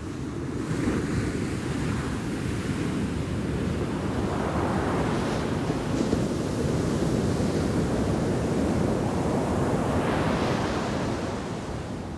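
Shore-break waves crashing onto a sand beach: the surf swells three times, about a second in, midway and near the end, over a steady wash.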